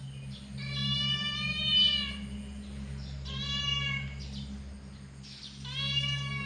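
Angry domestic cat yowling: three long, drawn-out wails, the first the longest at about a second and a half, the others about a second each.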